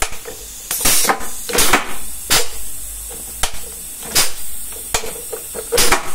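ZF truck gearbox being shifted by hand through its gears with no engine running: a string of about eight sharp clunks from the gear lever and selectors. Some clunks come with a short hiss of air from the gearbox's pneumatic shift lines.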